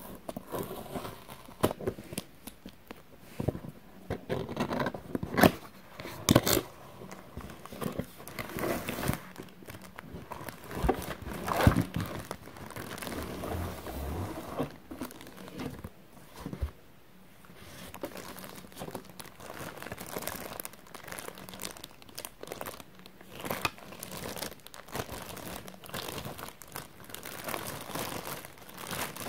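Unboxing a plastic kitchen grater: a cardboard box handled and opened, then the grater's plastic bag crinkling and rustling as it is pulled out and unwrapped, with irregular sharp crackles throughout.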